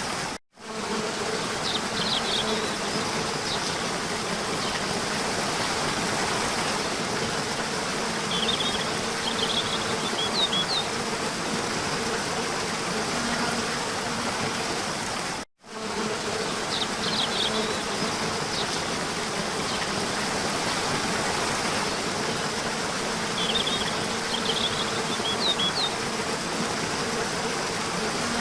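Steady rush of a waterfall, with small birds chirping in short bursts now and then. The sound cuts out for an instant twice, about half a second in and about halfway through.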